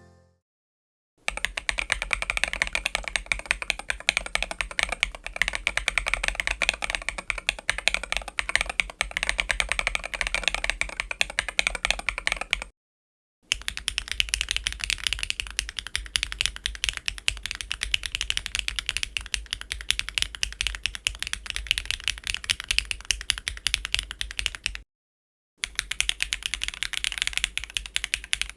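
Typing on a mechanical keyboard fitted with WS BigLucky linear switches: a fast, continuous run of keystroke clacks. It comes in three passages split by brief pauses, and the tone of the clacks shifts from one passage to the next.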